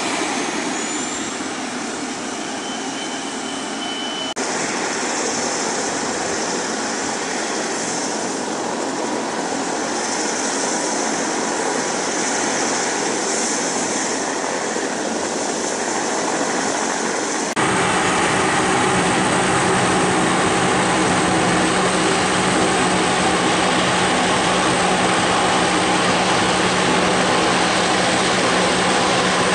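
Airplane engines running on an airport runway, heard across the airfield in spliced segments with a hushed, rushing engine sound. About two-thirds through, a sudden cut brings a louder, steady drone with several held tones from a single-engine firefighting airplane on the runway.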